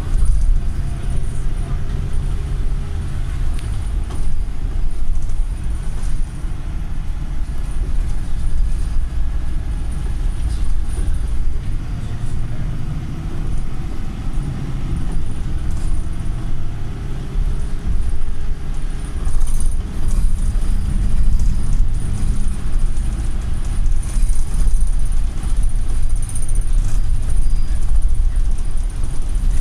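Inside a Volvo MCV Evora single-deck bus on the move: steady engine and road rumble, with the engine note slowly rising and falling as the bus changes speed. A few short clicks and rattles come through in the second half.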